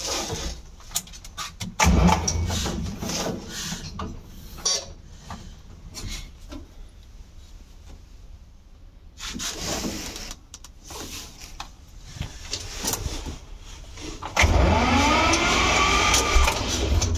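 Clicks and knocks of the dashboard switches and controls of a 1968 Steyr 86 tractor being worked. Then, about three-quarters of the way through, the starter cranks the tractor's diesel engine with a rising whine and a heavy low rumble.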